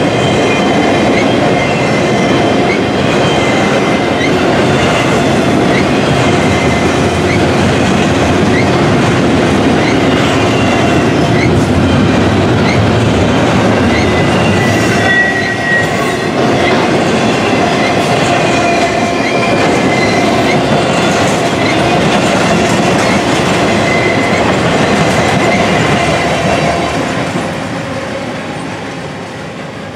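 Double-stack intermodal container cars of a freight train rolling past: steady rumble and rattle of steel wheels on the rails, with a thin high wheel squeal at times. It fades over the last few seconds as the end of the train goes by.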